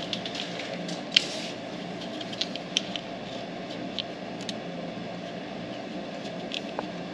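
Scattered light clicks and rustles of hands working plastic wiring loom and wires into place, over a steady low hum.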